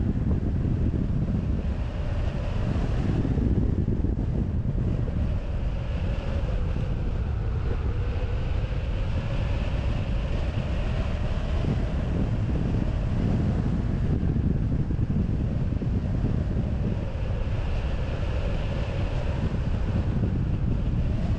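Airflow rushing over a wing-mounted camera's microphone on a hang glider in flight: a steady, heavy low buffeting with a faint tone that slowly wavers in pitch.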